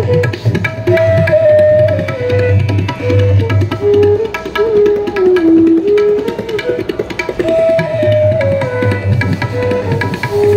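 A bansuri (bamboo transverse flute) plays a melody of held notes that step up and down, accompanied live on tabla: quick, sharp strokes on the small treble drum and deep strokes on the large bass drum.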